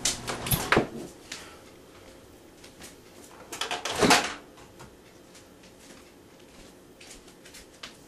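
Microwave oven running with its hum and sharp crackles from the lightbulb arcing inside; the hum stops about a second in. Around four seconds in comes a loud clatter of the microwave door being unlatched and opened.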